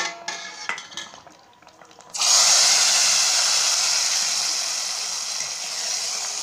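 A few clinks of a spoon against a steel pot, then about two seconds in a sudden loud sizzle that slowly fades. It is the hot oil tempering (tadka) of spices hitting the kadhi.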